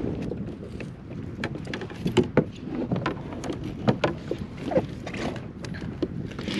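Irregular clicks and knocks of a landing net's frame and mesh being handled against a kayak, with a few sharper knocks about two and four seconds in.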